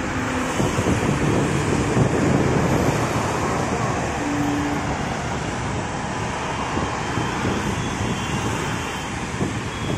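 Heavy highway traffic: a steady rush of tyres and engines from cars and trucks passing on a multi-lane road, with a brief steady tone about four seconds in.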